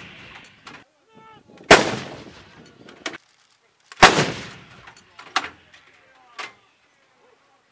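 Weapons firing on a live-fire range. Two loud shots come about two seconds apart, each trailing off in a long echoing rumble, followed by a few fainter shots.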